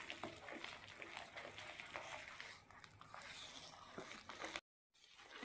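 Faint wet squelching and small clicks of a hand beating an egg into creamed margarine ghee and sugar in a glass bowl, with a brief dropout to silence near the end.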